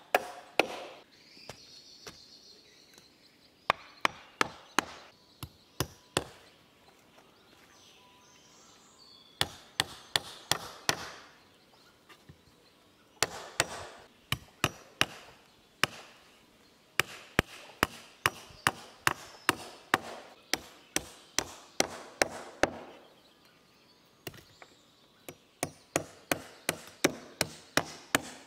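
A hatchet striking wooden boards and stakes: runs of sharp blows, about two to three a second, with short pauses between the runs.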